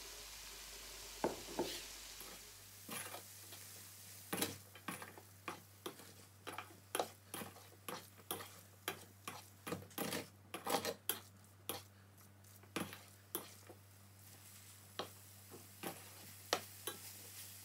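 Black slotted spatula knocking and scraping against a stainless steel frying pan while stir-frying minced tofu and bell pepper strips, with irregular clacks about twice a second over a faint sizzle.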